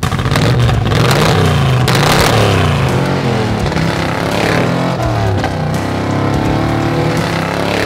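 Early Ford Bronco's engine and exhaust under hard acceleration, the exhaust note rising and falling in pitch several times as it revs and shifts.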